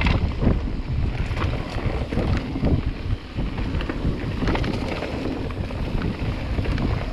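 Mountain bike riding down a rough trail: wind rushing over the chest-mounted microphone, tyres rumbling over dirt and stones, and frequent knocks and rattles from the bike.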